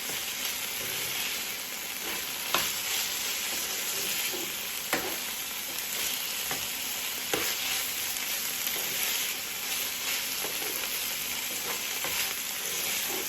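Chicken pieces frying in oil with onions in a pan, sizzling steadily, with a few sharp scrapes and knocks of the stirring spoon against the pan as they are browned.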